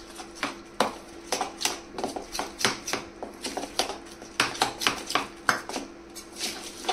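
Utensil clinking and scraping against a bowl while stirring besan batter with curd-water and oil, in irregular taps a few times a second.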